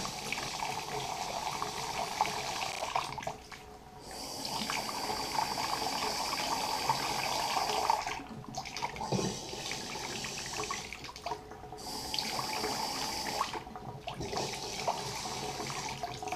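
Water running hard from a bathroom faucet spout with its aerator removed, splashing into the sink basin and over a hand, to flush debris out of the newly connected supply lines. The flow drops off and comes back several times as the hot and cold handles are turned.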